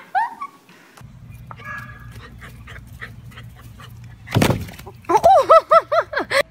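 A loud thud about four seconds in, then a dog giving a quick run of about seven high yips in a little over a second.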